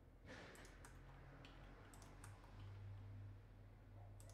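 Near silence with a few faint, scattered clicks of a computer keyboard and mouse, over a low steady hum.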